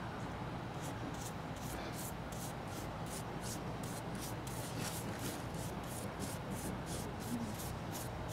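Small paintbrush swishing acrylic paint onto a PVC pipe in quick, random overlapping strokes, starting about a second in and repeating about three times a second.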